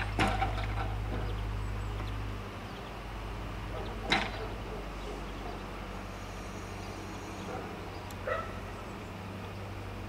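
A dog giving a few short barks or yelps several seconds apart, over a low steady hum that drops about two and a half seconds in.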